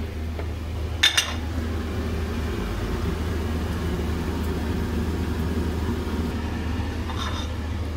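Patties frying in oil in a pan on a gas stove, under a steady low rumble and faint hiss, with a sharp metal clink about a second in and a softer one near the end.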